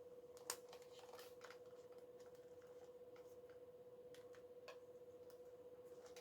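Near silence, with a faint steady tone throughout and a few small plastic clicks from handling the camcorder, the clearest about half a second in.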